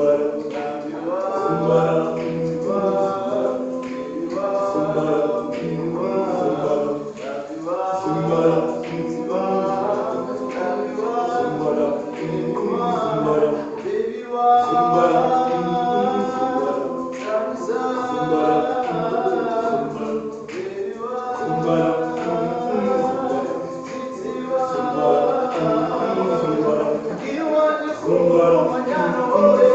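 Choir singing a cappella, several voices in harmony.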